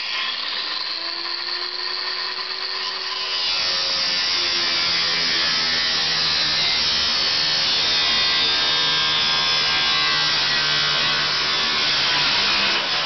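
Angle grinder with a cut-off disc spinning up, its motor whine rising in pitch, then from about three seconds in cutting steadily through the steel roof panel of a 1949 Plymouth with a loud, harsh grinding.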